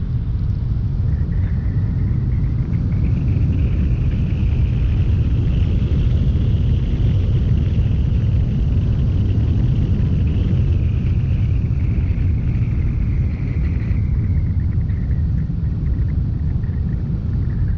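A car being driven: a steady low rumble of engine and road noise, with a higher hiss that swells a few seconds in and fades away near the end.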